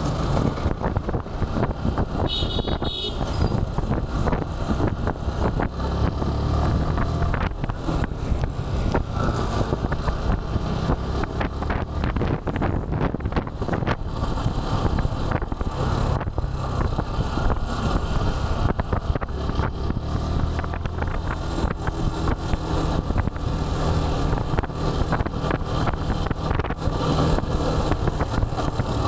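Motorcycle riding along a city road: a steady engine and road rumble with continuous flutter.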